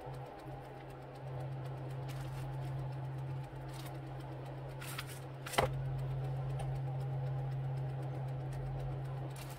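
Steady low mechanical hum, like a small electric motor running, with one sharp click a little past halfway.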